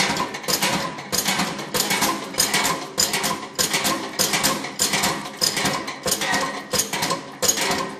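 Irregular metallic clicking and clinking, a few strikes a second, from a pipe load-test press as its load is raised toward 100 kg.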